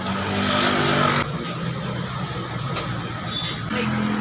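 Pulsar NS 150 motorcycle engine running, loudest for about its first second, then settling to a steadier lower level.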